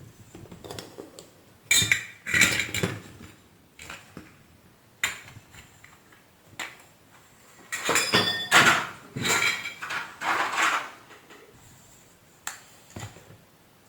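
Hard parts clattering and knocking as they are handled and set down, in irregular bursts with the busiest, loudest stretch a little past the middle.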